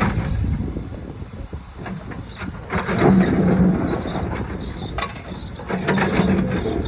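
Backhoe's diesel engine running and rising under load twice, with sharp clanks and cracks as the machine breaks into a cinder block wall.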